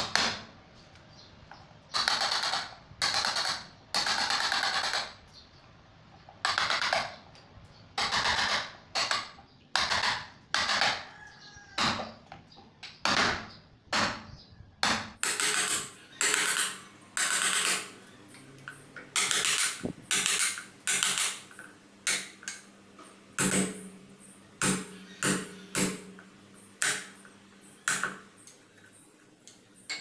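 Wood chisel pushed by hand, paring and scraping out a shallow recess for a door lock's strike plate in a wooden door jamb. About two dozen irregular strokes: some longer shaving scrapes and some short sharp cuts.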